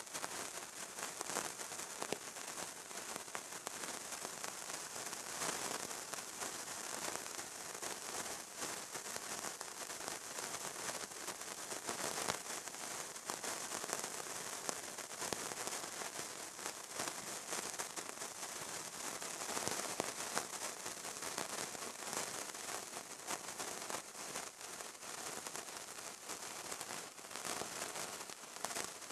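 Fire burning steadily, a continuous crackling hiss dotted with many small pops.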